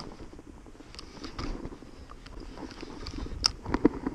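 Scattered clicks and knocks from a spinning reel and rod being handled in a rowboat, with a low rumble underneath; the two loudest knocks come close together near the end.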